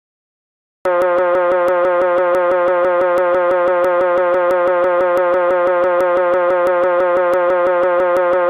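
Loud buzzing tone at one steady pitch, pulsing with a fast even click about six times a second; it starts abruptly about a second in and cuts off abruptly at the end, with dead silence before it.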